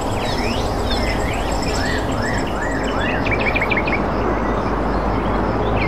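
Several birds chirping and calling over a steady background rumble. About two seconds in comes a run of arched whistled notes, followed by a quick series of short notes. A rapid high pulsing call fades out early on.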